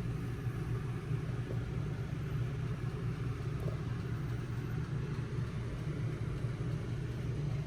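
Steady low background hum, with no distinct clicks or other events.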